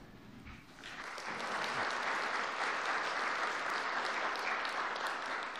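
Audience applauding, building up about a second in and tapering off near the end.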